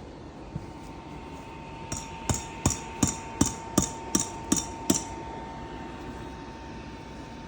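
A quick run of about eight evenly spaced knocks, close to three a second, like hammer strikes, over a steady hum.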